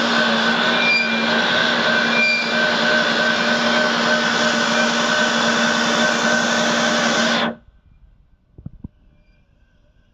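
Elfubro mini tractor's motor running steadily under load, a loud even mechanical drone with a few held tones, which cuts off suddenly about three-quarters of the way through. A couple of faint knocks follow.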